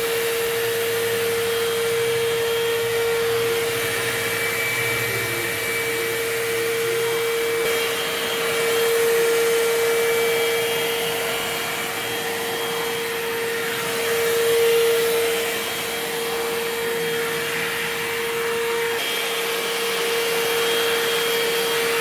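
Cordless handheld vacuum cleaner running steadily with a constant whine, its dust brush nozzle sucking dust off a window mosquito mesh. Its loudness swells briefly twice as the nozzle moves over the mesh.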